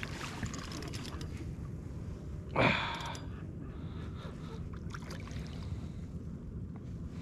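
A person's sharp, breathy gasp or heavy exhale, once, about two and a half seconds in, over a steady low background noise.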